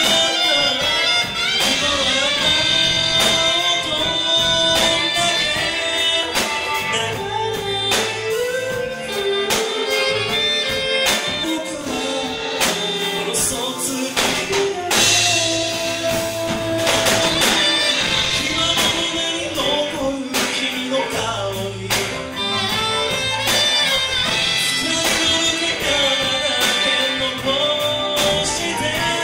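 Live band performing a song: a man singing into a microphone over saxophone, electric guitar, bass guitar and drums.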